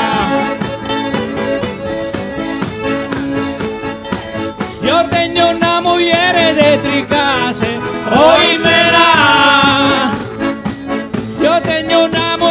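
A live Salento folk band plays a fast, steady percussion beat under a melody with heavy vibrato. The melody swells about five seconds in and again about eight seconds in.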